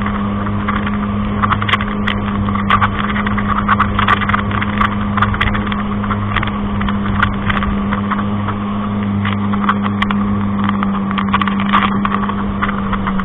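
A motorboat engine running at a steady towing speed, a constant droning hum, over the rush of the wake. Short crackles and splashes of spray hit the camera throughout.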